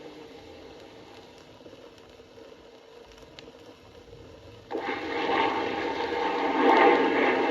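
An aircraft engine noise, faint and dying away, then about three-quarters of the way through a loud rushing aircraft engine noise starts abruptly and grows.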